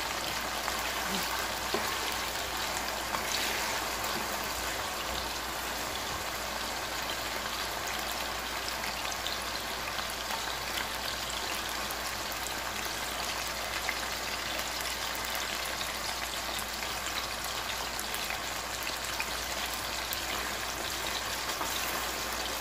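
Diced potatoes deep-frying in hot oil: a steady sizzle with scattered small crackles.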